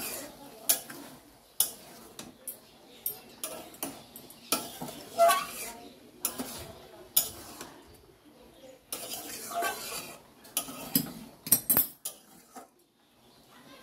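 Metal spatula scraping and clinking against a metal kadai as diced bottle gourd is stirred and tossed with spice paste, in irregular strokes with a short pause near the end.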